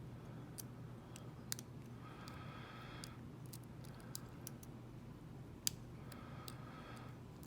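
Faint scattered clicks and ticks of a lock pick and tension wrench working the pins of a Mako 427 lock, with one sharper click a little after halfway.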